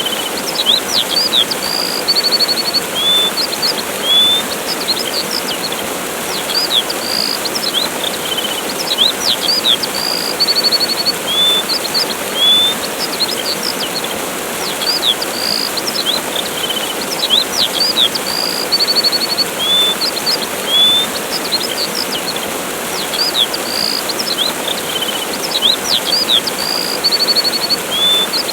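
Steady rushing of a waterfall with small birds chirping over it in short sweeping whistles and quick trills. The same sequence of calls repeats about every thirteen seconds.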